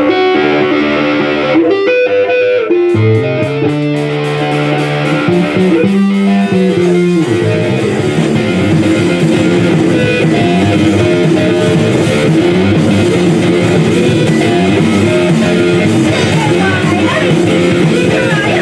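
A live band starts a song. Electric guitar notes open it, then bass and drums come in about three seconds in, and the full band plays on together.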